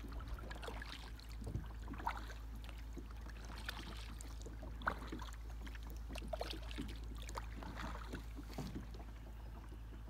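A paddle dipping and pulling through calm water, with light, irregular splashes and drips over a steady low rumble.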